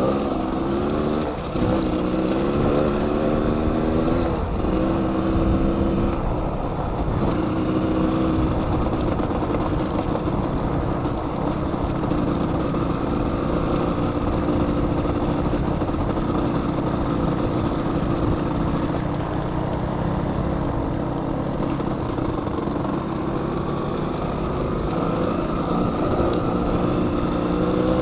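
Dual-sport dirt bike engines running, one close by at a steady idle-like note whose pitch steps up and down now and then as other bikes come up along the gravel.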